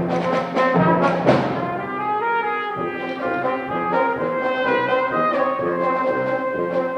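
Symphonic band playing: brass chords punctuated by sharp percussion hits for about the first second and a half, then sustained, layered wind chords.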